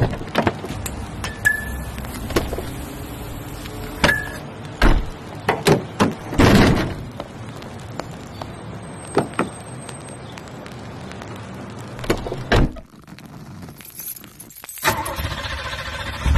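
Car keys jangling amid a scatter of sharp clicks and knocks, with a few heavier thumps.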